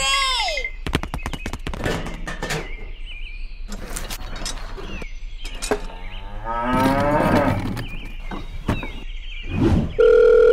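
Cow mooing sound effects: a short moo falling in pitch at the start and a longer moo past halfway, with a quick run of clicks and knocks in between. A telephone dial tone comes in near the end.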